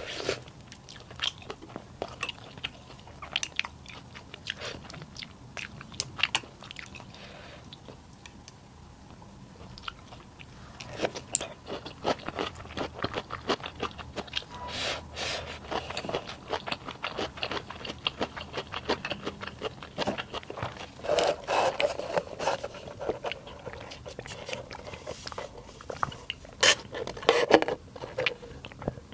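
A person eating close to the microphone: chewing and biting with many short, sharp crunching clicks, quieter for a couple of seconds about a third of the way in, then denser and louder.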